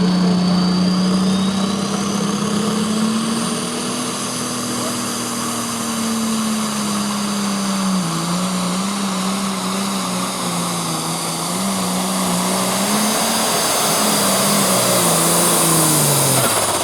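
Pro stock pulling tractor's turbocharged diesel engine at full power under load, dragging the weight sled. The engine note climbs over the first few seconds, sags about halfway, wavers up and down as the tractor hops from side to side with its front end up, then falls away and cuts off just before the end as the pull ends.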